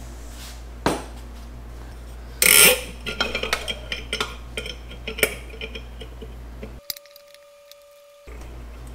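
Metal hand tools and engine parts clinking and clattering as they are handled: a sharp click about a second in, a louder clatter at about two and a half seconds, then a run of light clinks.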